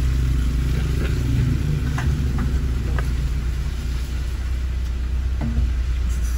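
Steady low rumble of a car's running engine heard from inside the cabin, with a few faint light ticks.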